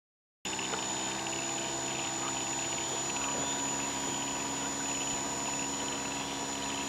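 Motor of a radio-controlled model Cessna 182 floatplane running steadily, a constant hum with a thin high whine above it, starting abruptly about half a second in.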